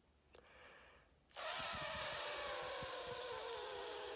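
A long voiceless 'th' (the dental fricative /θ/): a steady hiss of air pushed out over the tongue held between the teeth. It starts about a second in and is held for about three and a half seconds.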